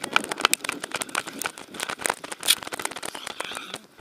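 Harness-mounted camera on a galloping Welsh corgi, rattling and knocking in quick irregular clicks as the dog runs over packed dirt.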